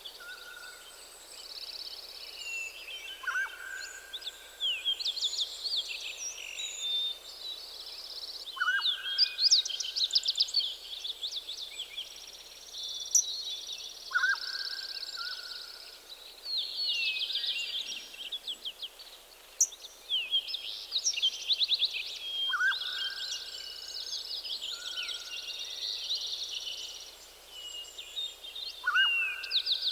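Many songbirds singing together in a forest morning chorus: overlapping high warbles and rapid trills, with one lower, held whistle-like call repeated about every five to six seconds.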